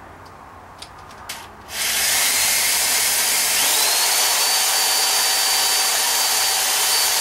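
A couple of light clicks, then a power drill starts about two seconds in and runs steadily, drilling a small hole through a quarter. Partway through, a high whine rises and then holds.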